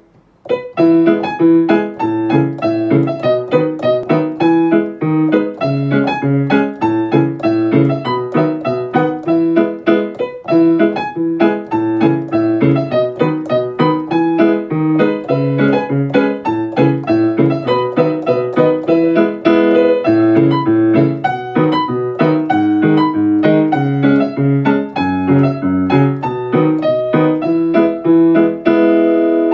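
Background piano music, a tune of quick notes and chords, starting just under a second in.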